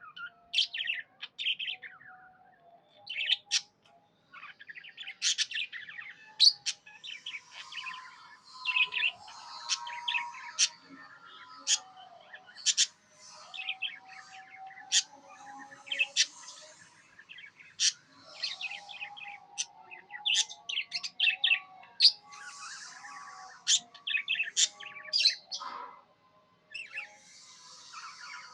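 Budgerigar chirping and warbling: a busy run of short, sharp chirps and chattering trills, with a couple of brief pauses.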